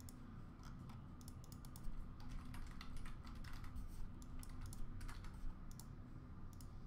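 Typing on a computer keyboard: quick, irregular key clicks.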